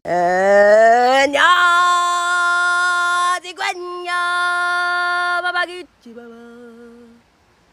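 A singing voice without words, sliding up into a long held note, then holding steady notes with a short break in the middle. Near the end it drops to a quieter, lower note and stops.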